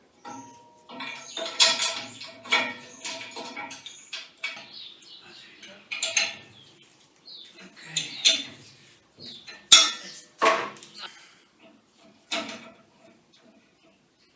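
Metal parts clinking and knocking together as they are handled and fitted, with brief metallic ringing; a sharp knock about two-thirds of the way through is the loudest.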